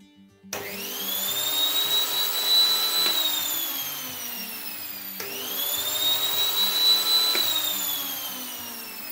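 Small single-phase electric motor started and stopped twice. Each time it whines up to speed within about a second, runs steadily for about two seconds, then is cut off and its whine falls as it coasts down. There is a faint click at each start and stop, and quiet background music underneath.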